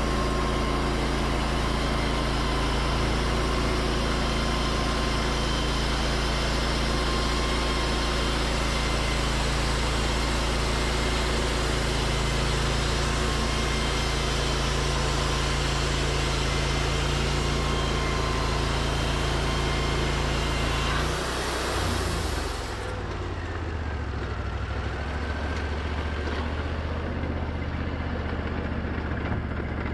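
Wood-Mizer LT40 bandsaw mill sawing through a white pine cant, the engine running steadily under load with a dense hiss of the band blade cutting. About two-thirds of the way through the cut ends: the engine drops to a lower, lighter note and the hiss falls away a couple of seconds later.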